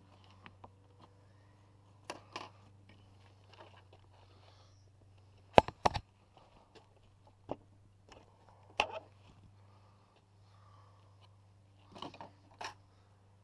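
Scattered clicks, knocks and scrapes of hand tools and small hardware being handled during bumper fastener work, the loudest a quick double knock about six seconds in, over a steady low hum.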